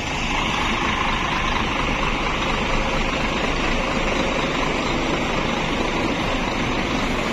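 Tour bus diesel engine idling steadily.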